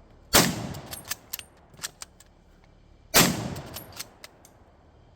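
Two shots from a Type 99 Arisaka bolt-action rifle in 7.7x58mm, about three seconds apart, each dying away over about a second. Between them come metallic clicks and clacks of the bolt being worked to chamber the next round.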